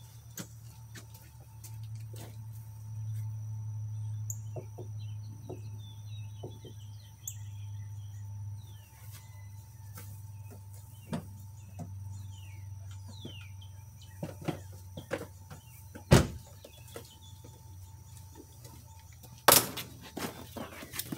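Outdoor ambience: birds chirping over a steady low hum, with scattered light clicks and two sharp knocks near the end.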